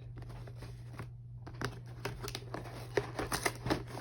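A cardboard keyboard box being opened and its packaging handled: scattered rustles, scrapes and light clicks, busier in the second half.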